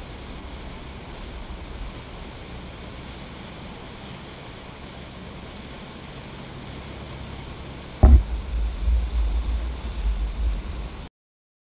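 A boat running at speed: its churning wake gives a steady rushing wash of water. About eight seconds in, a sudden loud low rumbling and buffeting starts, then all sound cuts off abruptly near the end.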